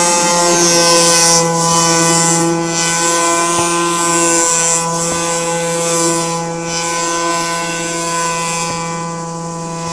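Radio-controlled model airboat's motor and air propeller running at a steady high buzz as the boat speeds across the water, fading a little near the end as it moves away.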